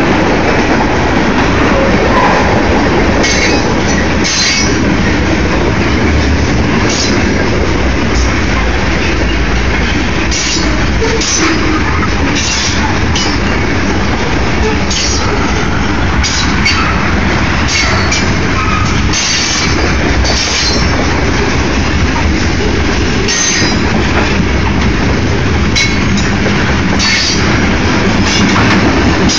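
Freight train's railroad tank cars rolling past: a steady rumble of steel wheels on rail, with frequent irregular clacks and knocks as the wheels cross rail joints and a light wheel squeal in places.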